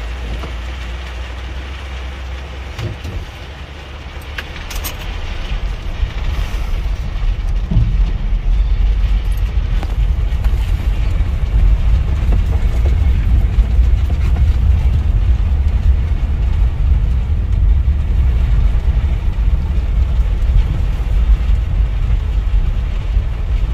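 Low, steady rumble inside a motorhome cab being towed on a wet road, its own engine dead after getting soaked, growing louder about four to eight seconds in as it picks up speed, with rain on the windshield.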